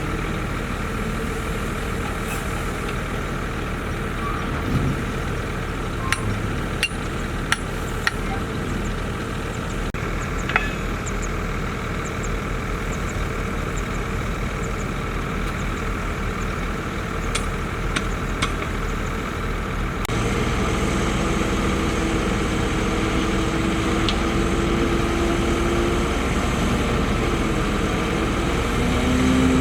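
Heavy diesel earthmoving machinery running steadily, with a few sharp metallic clanks about six to eight seconds in. The engine gets louder about twenty seconds in.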